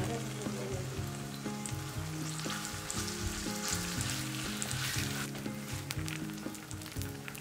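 Seafood and green onion pancake batter sizzling and crackling in hot oil on a wide cast-iron pan. Background music with a low melody plays underneath.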